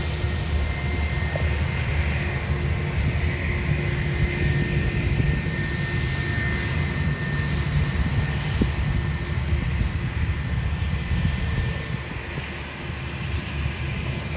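Aircraft engines running at an airport: a steady deep rumble with a high whine that falls slightly in pitch as it goes, easing a little near the end.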